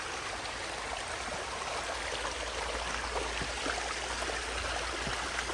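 Water running steadily down a cascading garden water feature, spilling from one leaf-shaped basin into the next.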